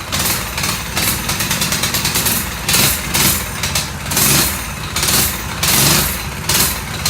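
Coleman BT200X mini bike's single-cylinder Honda-clone engine idling unevenly on choke as it warms up after its first start, with a loping beat likened to a Harley-Davidson. Short hissing surges come and go over the engine every half second to a second.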